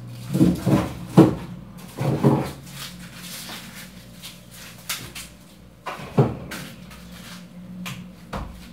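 Knocks and clunks at a fridge's freezer compartment as frozen food is worked loose and pulled out: a cluster of knocks in the first two and a half seconds and one more about six seconds in.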